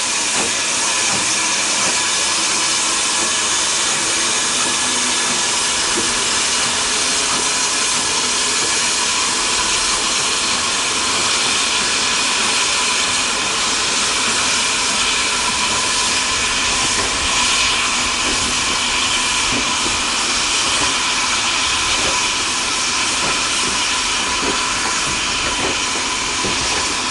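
Steam locomotive hauling a passenger train, giving a loud, steady hiss of steam.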